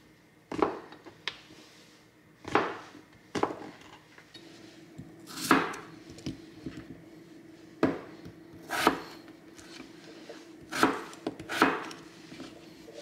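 Kitchen knife chopping king oyster mushroom and peeled potato on a cutting board: about nine separate strokes, each a sharp knock of the blade on the board, roughly a second apart. A faint steady hum comes in about four seconds in.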